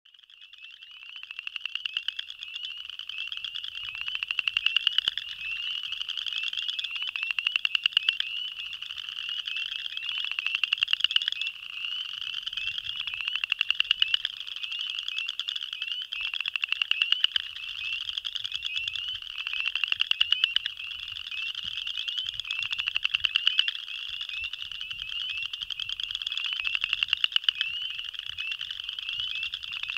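Male boreal chorus frog (Pseudacris maculata) giving its breeding advertisement call: a rapid trill of clicking pulses that grows louder, about a second long and repeated roughly every three seconds. Behind it is a steady chorus of other calling frogs.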